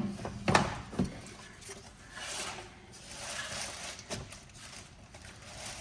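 A few sharp clicks and light knocks with soft rustling in between, from hands handling metal engine parts.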